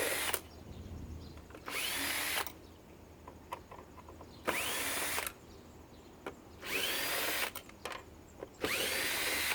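Cordless power drill run in five short bursts, each under a second, its motor whining up in pitch at the start of each, with small clicks and taps between.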